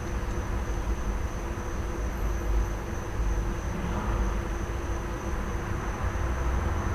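Idling truck engine running with a steady low hum, under a continuous high-pitched trill of crickets and a wash of traffic noise.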